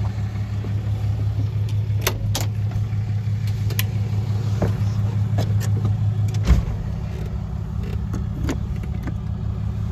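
Engine idling steadily, with a few sharp clicks and a single knock about six and a half seconds in, after which the hum is a little quieter.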